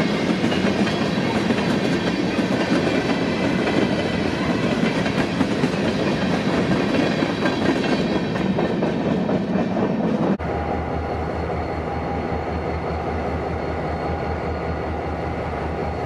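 A freight train of covered hopper cars rolling past over the rails with a steady clickety-clack. About ten seconds in it cuts off suddenly, replaced by a quieter, steady low mechanical hum.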